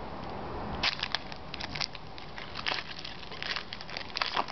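A foil trading-card pack wrapper being torn open and crinkled by hand: a run of irregular crackles that starts about a second in.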